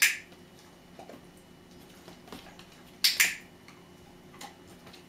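Dog-training clicker clicked twice, once right away and again about three seconds in, each a sharp quick double click. In clicker training the click marks the moment the dog performs the wanted move.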